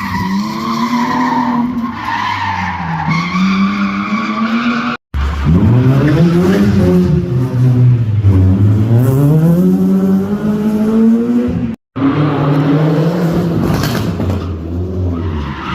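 Race car engine revving up and down hard with tyres squealing, as a car is driven sideways in a show run. The sound cuts out for an instant about five seconds in and again about twelve seconds in.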